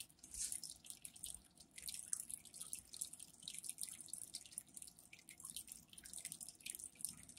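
Faint, irregular dripping and trickling of water in a home aquarium, from the filter outflow splashing into the tank, with a cat's paw dipping into the water at the start.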